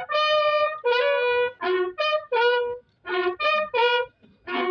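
A solo bugle sounding a military funeral call: one clear brass line of separate notes, a long held note at the start, then shorter notes stepping up and down.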